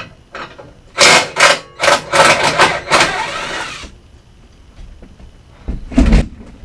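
Cordless power tool running in several short bursts, backing out the bolts on the exhaust brackets. A dull knock near the end.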